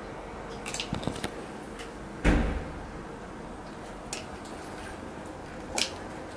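Pet nail clippers snipping through a cat's claws: short sharp clicks, a quick cluster about a second in and single snips later. About two seconds in there is a louder dull thump, the loudest sound.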